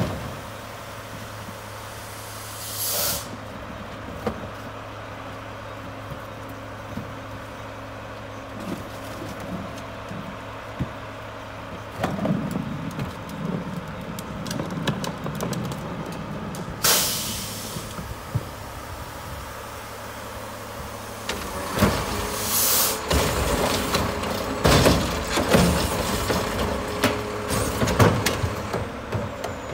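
Mack LEU front-loader garbage truck idling with a steady low hum, with two short hisses of air from its air brakes about 3 and 17 seconds in, and rattling of plastic carts and trash. In the last several seconds, louder clanks and rattles come with a steady whine as the truck pulls up to the steel dumpster.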